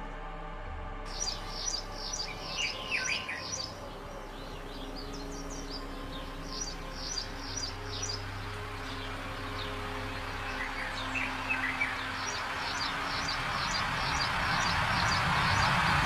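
Bird chirps in short quick clusters over a faint steady low drone, with a rushing noise that swells gradually through the second half.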